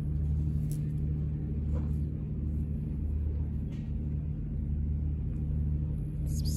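Tabby cat purring while being scratched under the chin: a steady low rumble that swells and fades with each breath, about once a second.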